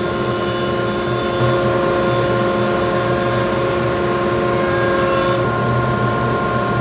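Jointer running with its cutterhead spinning as a quarter-sawn white oak board is fed across it, a steady machine hum under the hiss of the cut. The cutting hiss stops about five and a half seconds in, leaving only the hum.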